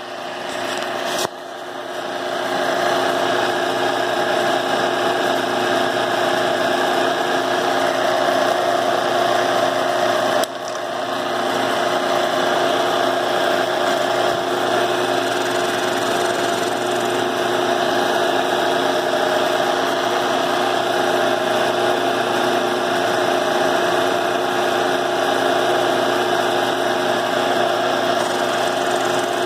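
A power cutting tool runs steadily as its bit faces off the dividing wall of an edger's housing. It comes up to full speed about a second in, with a brief dip around ten seconds in.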